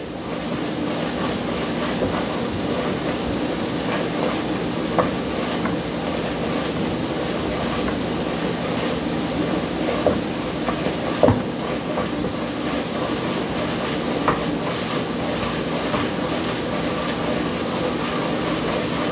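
Butter-and-flour roux with diced jalapeños cooking in a pot: a steady sizzling hiss, with a few light clicks of a utensil against the pot as it is stirred.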